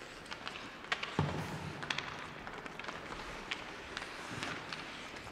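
Ice hockey play in an arena: a string of sharp stick-and-puck clacks and a heavier thud about a second in, over a steady haze of rink and crowd noise.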